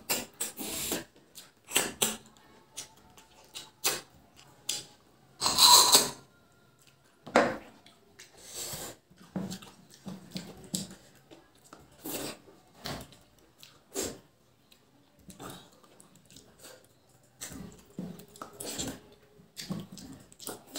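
Close-up eating sounds: irregular wet mouth smacks, slurps and chewing as curry-coated fingers are licked and sucked clean, with one louder, longer slurp about six seconds in.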